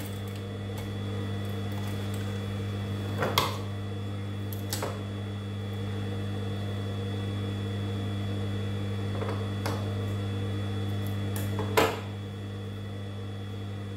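Motor of a Gemsy industrial sewing machine humming steadily while the needle is not running, with a few sharp clicks from handling at the machine.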